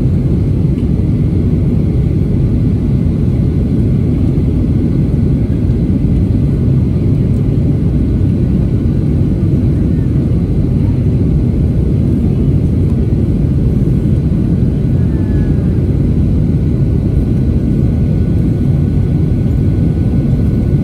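Steady cabin noise of a Boeing 737-800 descending on approach, heard from a window seat beside the wing: its CFM56 turbofan engines and rushing airflow make a deep, even rumble.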